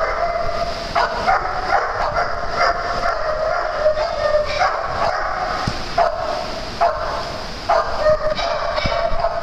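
Dogs barking repeatedly, a fast, unbroken run of barks at much the same pitch.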